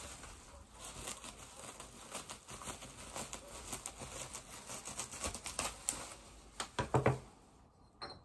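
Plastic bubble wrap crinkling and crackling in a dense run of small clicks as it is handled and cut with scissors, with a few louder knocks about two-thirds of the way through.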